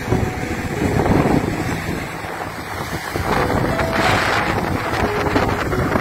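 Strong wind buffeting the microphone in gusts, over surf breaking on a sandy beach.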